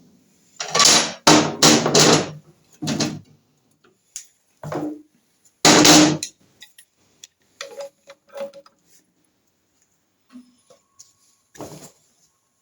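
A hammer striking metal, apparently the sprocket puller, to shock a seized engine sprocket loose from the crankshaft. About five heavy blows land in quick succession in the first two seconds, a few more follow at intervals, and lighter knocks come near the end.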